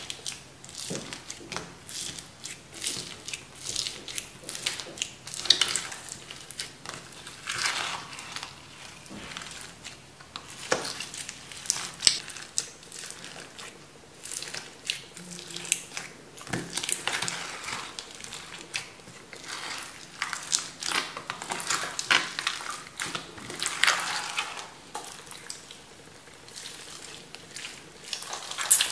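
Foam-bead slime (floam) being stirred through a plastic tub and then squeezed by hand: a steady run of irregular crackling clicks and short swishes as the beads are pressed through the sticky slime.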